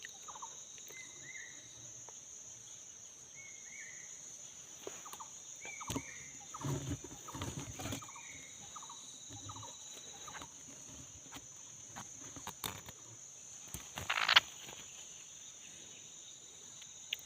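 Laughingthrushes calling: short, scattered chirps and soft call notes, with one louder call about fourteen seconds in, over a steady high-pitched insect drone.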